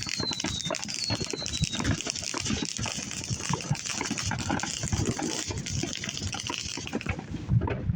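Many distant consumer fireworks crackling and popping in a dense, steady hiss of small reports that stops about seven seconds in, with a faint falling whistle in the first two seconds.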